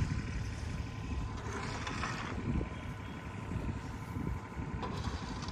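Wind buffeting the microphone: a steady low rumble, with a brief hiss about two seconds in.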